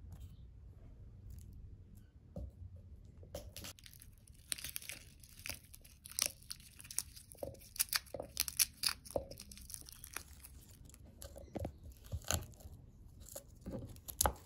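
Dry, papery garlic skins crackling and tearing as a garlic bulb is broken into cloves and the cloves are peeled by hand; a dense run of small crisp crackles starts a few seconds in and keeps going.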